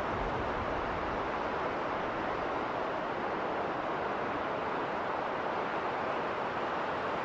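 Snowstorm wind blowing steadily, an even rushing noise with no breaks or gusts standing out.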